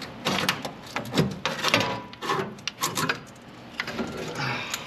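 Irregular knocks, clicks and rubbing of hands and metal parts working at a fuel-line fitting on the bus engine.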